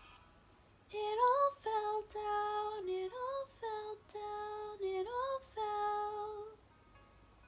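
A young woman singing solo without accompaniment: a phrase of long held notes joined by upward slides, with no words made out. It starts about a second in and stops about a second before the end.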